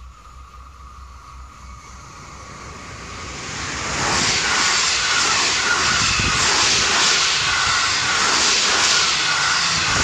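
Electric train approaching and then passing close by, a rushing rumble that swells over the first few seconds and stays loud, with a regular rhythmic beat from the wheels on the rails.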